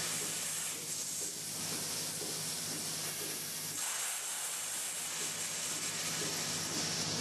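Hissing spray from the nozzle that rinses the teat-cleaning brushes of a Lely Astronaut milking robot. It grows fuller about four seconds in, over a steady low machine hum.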